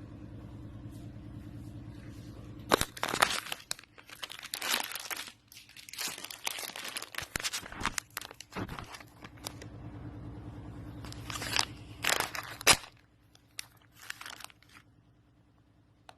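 Kitchen handling noises: irregular scrapes, crinkles and sharp knocks over a steady low electrical hum, with the loudest knocks about three seconds in and again near twelve seconds. It goes almost quiet for the last couple of seconds.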